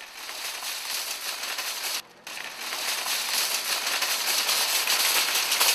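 Metal shopping cart rolling over asphalt, its wire basket and wheels rattling as a steady hiss. The noise breaks off briefly about two seconds in, then runs a little louder.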